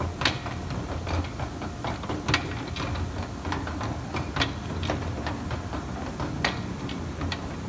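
Takisawa TT160G CNC lathe's work stocker running: a steady low motor hum with irregular mechanical clicks and clacks, several of them sharp and loud.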